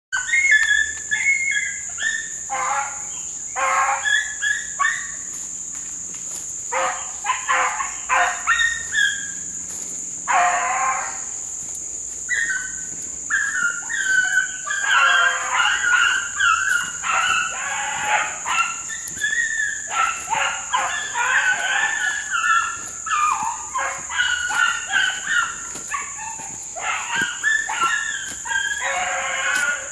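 A pack of hunting hounds baying and barking in chorus while running a track, with several dogs' calls overlapping almost without a break.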